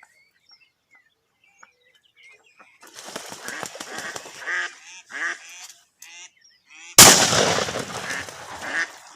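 A live decoy duck quacking in a run of calls. About seven seconds in comes a sudden loud burst of noise, the loudest sound here, fading away over the next two seconds while the duck calls again.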